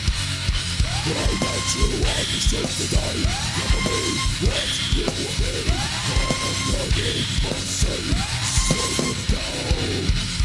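Heavy metal music: dense pounding drums under a rising figure that repeats every couple of seconds, with shouted vocals.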